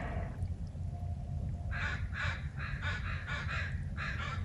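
Crow cawing, a call fading at the start and then a fast run of harsh caws, about four a second, from a little under two seconds in.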